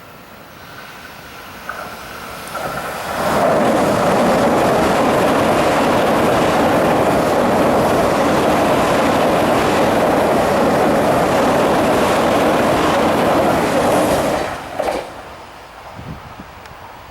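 Chuo East Line electric limited express train passing close by. Its wheel and running noise builds over about three seconds, stays loud and steady for about eleven seconds, then drops away suddenly as the last car passes.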